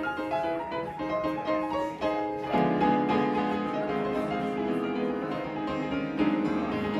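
Upright piano played by hand: a lively run of single notes and chords, with a fuller low chord struck about two and a half seconds in.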